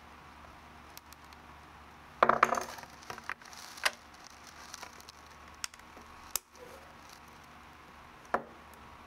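Handling noise from a black ABS plastic plate fitted with metal beam blocks and screws: a short clatter of knocks about two seconds in as it is set down on the wooden table, then a few separate sharp clicks and taps as the parts are turned and adjusted by hand.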